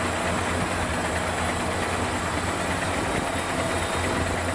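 Diesel engine of a MAZ dump truck running steadily with a deep, even hum while its tipper bed is raised to dump a load of sand.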